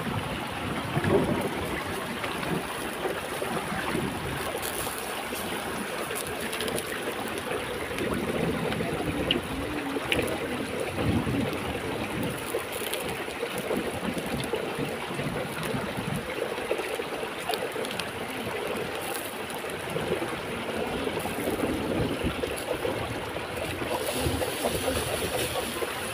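A stream running steadily over rocks, a continuous rush of water, with a few light clicks.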